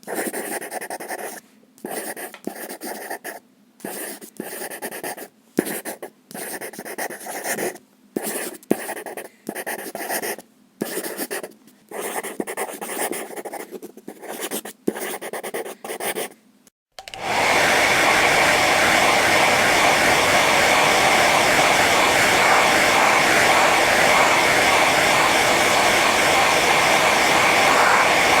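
A string of short, irregular scratchy noise bursts with pauses between them. Then, about two thirds of the way in, a steady loud whirring rush of air from a small motorized appliance, like a hair dryer, starts up and keeps going.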